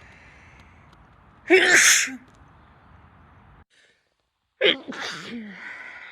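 A woman sneezing twice: one loud sneeze about a second and a half in, then another with a sharp start near the end, trailing off into a breathy exhale.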